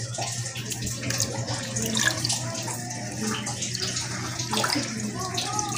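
Water running steadily, with faint voices in the background.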